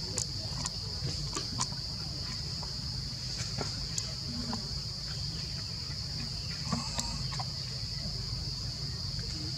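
Steady high-pitched insect drone, with a few light clicks scattered through it.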